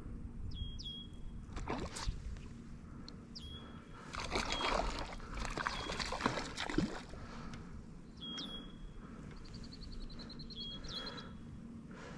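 A hooked brown trout splashing and thrashing at the surface of a pond for a few seconds around the middle. A bird calls repeatedly throughout, a short whistle that jumps up and then holds, every two to three seconds.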